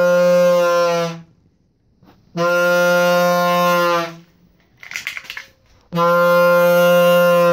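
Bullhorn Red cow horn on a Ford E350 van sounding its steady cow-like blast three times. The first blast ends about a second in, the second runs from about two and a half to four seconds, and the third starts about six seconds in.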